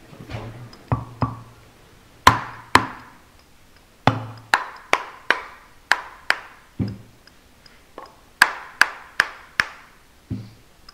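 Rubber mallet striking a used turbocharger's housing, about eighteen sharp blows in short runs, each with a brief ringing tail, to knock the turbine housing loose from the centre section for disassembly.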